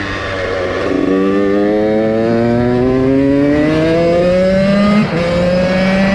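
KTM 85 two-stroke motocross bike's engine accelerating hard, its pitch climbing steadily for several seconds. It dips briefly about five seconds in at a gear change, then climbs again.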